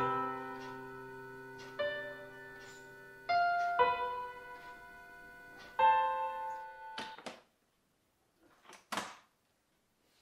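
Soft solo piano film score: single notes and chords struck every couple of seconds, each left ringing, fading out about seven seconds in. Near the end come a few faint clicks and a short snap from a case's latches being opened.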